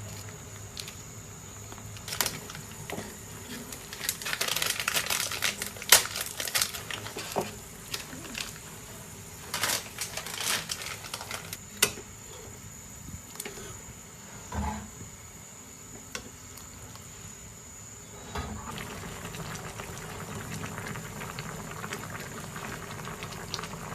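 Home cooking sounds: scattered clicks, knocks and rustling from utensils and packaging over liquid, then a steady boiling hiss from a pot setting in about eighteen seconds in.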